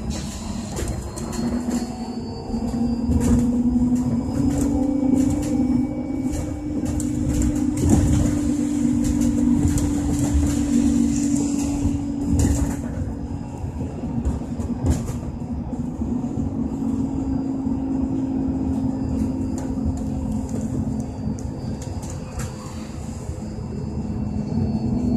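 Trolleybus ride heard from inside: the electric traction drive whines, rising in pitch as the bus pulls away, holding steady while it runs, and falling as it slows near the end. Road rumble and short knocks and rattles from the body run underneath.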